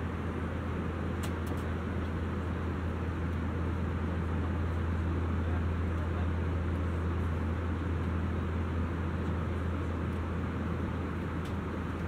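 Steady cabin noise of an Airbus A320-200ceo airliner in cruise, heard from a forward seat: an even engine drone and airflow hiss over a strong low hum. A faint click sounds about a second in and another near the end.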